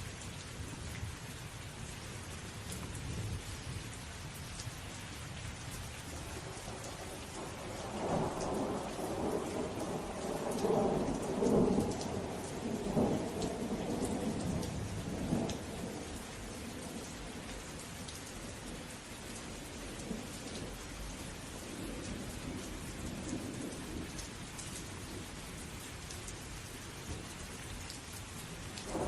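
Steady rain falling with thunder rumbling; a long roll of thunder swells up about eight seconds in and fades out around sixteen seconds, and another begins at the very end.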